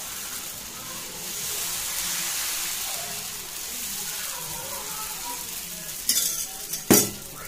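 Dosa batter sizzling on a hot dosa pan as it is ladled on and spread in a circle; the hiss builds over the first couple of seconds, then holds steady. Two sharp knocks come near the end, the second the louder.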